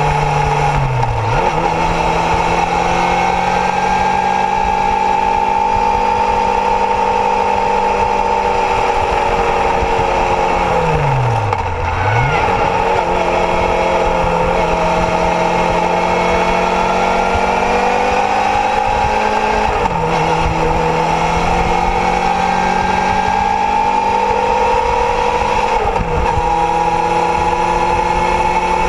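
Kawasaki Zephyr's air-cooled inline-four engine under way on an open road, heard from the bike itself, its note rising and falling with the throttle. The pitch drops sharply and picks up again about a second in, near the middle, and twice more later, as the throttle is closed and reopened.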